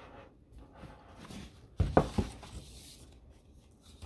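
Hardcover book being handled on a wooden desk: soft paper rustling as the pages are turned, with two or three sharp knocks close together about two seconds in.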